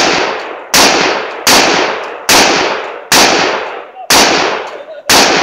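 Six rifle shots from a SIG MCX carbine at a slow, even pace of about one every 0.8 seconds. Each is a sharp crack trailing off in a long echo.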